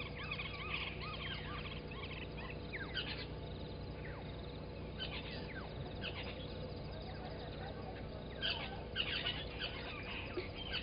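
Dawn chorus of several birds calling over one another: quick repeated arching chirps and down-slurred whistles, louder about five and nine seconds in. A steady low hum runs underneath.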